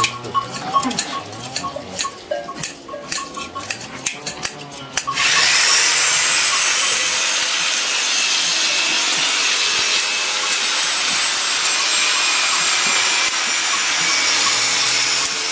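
Hand-held sheep blade shears snipping through fleece in a quick run of sharp clicks. About five seconds in, a steady loud whirring hiss with a faint high whine suddenly takes over and runs on.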